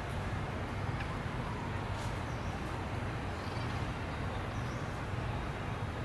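Steady outdoor background noise with a low rumble, with a few faint high chirps and small clicks over it.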